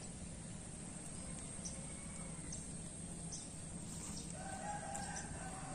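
A rooster crowing once, about four seconds in, over steady low outdoor background noise.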